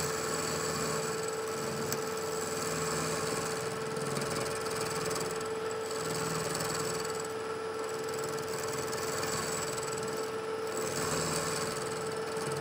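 Vertical milling machine running an end mill through weld buildup on a connecting rod, milling the weld down to see whether enough metal was built up. A steady whine that holds one pitch, over the noise of the cut.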